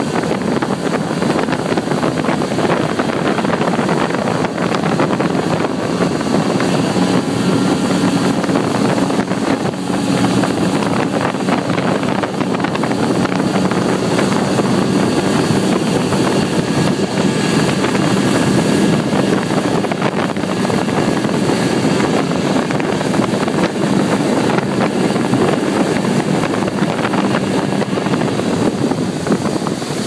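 Motorboat engine running steadily as the boat travels upriver, with wind buffeting the microphone.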